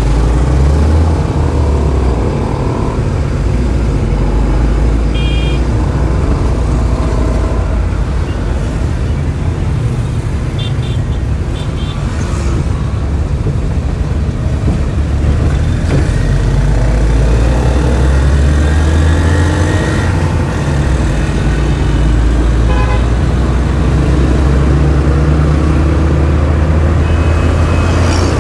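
Road traffic with a loud, steady low rumble of vehicle engines and tyres, and a few short horn toots: one about five seconds in, a pair around eleven seconds and another near twenty-three seconds.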